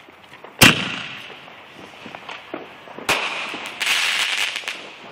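Fireworks going off: a loud bang about half a second in that fades away, then a second bang about three seconds in, followed by a burst of dense crackling.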